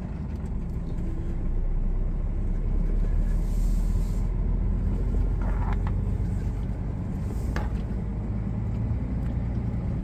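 Scania R450's diesel engine heard from inside the cab as the truck pulls away, a steady low rumble that grows louder over the first couple of seconds.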